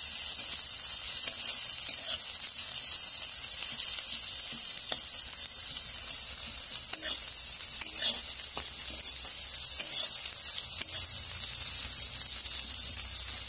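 Sliced onions and cumin sizzling steadily in hot oil in a steel kadai. The metal spatula scrapes and clicks against the pan now and then as they are stirred.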